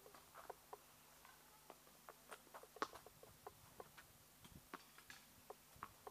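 Near-quiet court with faint scattered short chirps and clicks. One sharp knock just under three seconds in stands out, a tennis ball bounced on the hard court before a serve.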